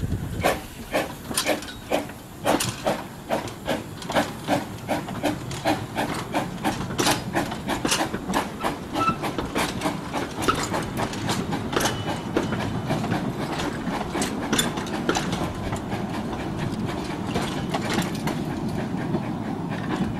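Steam locomotive working hard, with sharp exhaust chuffs about two to three a second. In the second half the chuffs fade into a steadier rumble and rattle of the train's wheels on the rails.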